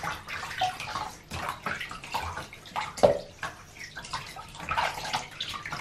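Shallow bathwater splashing and sloshing in a bathtub as hands scoop and rinse it over a pug puppy, in irregular splashes.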